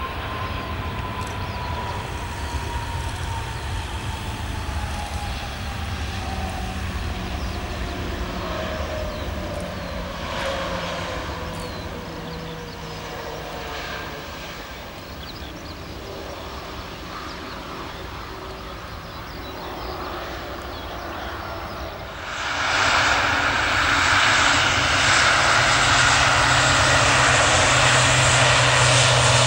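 Airbus A319's CFM56 jet engines running as the airliner rolls out after landing, with a whine that falls steadily in pitch. About 22 seconds in, it cuts suddenly to a louder turboprop engine with steady low propeller tones, from a Fokker 50 on its takeoff run.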